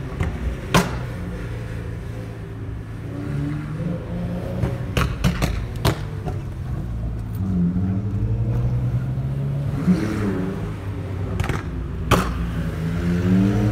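BMW E46 engine being revved repeatedly, its exhaust giving sharp pops and bangs between the revs. There are several pops in quick succession about five seconds in and more near the end.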